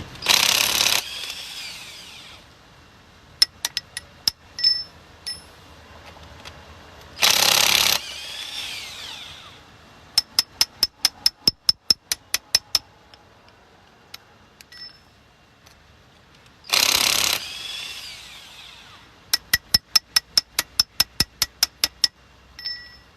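Cordless impact wrench hammering lug nuts loose on a car wheel in three short bursts, each winding down with a falling whine. Between the bursts come runs of quick sharp clicks, about three or four a second.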